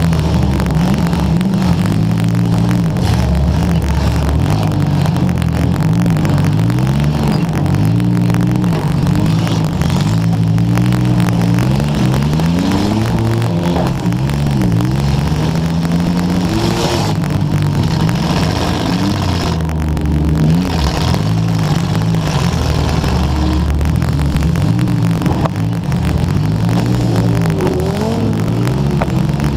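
Demolition derby car engines revving up and down over and over, their pitch constantly rising and falling, heard through a GoPro microphone that crackles with static after getting wet.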